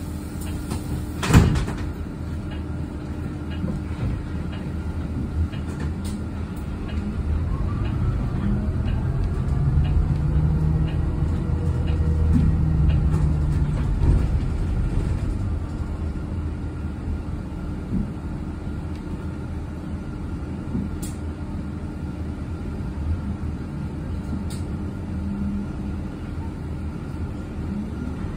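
Cabin of an electric city bus on the move: steady running and rattling noise with a constant hum. A sharp knock comes about a second in. Midway the bus runs louder, with a faint whine that rises and falls in pitch.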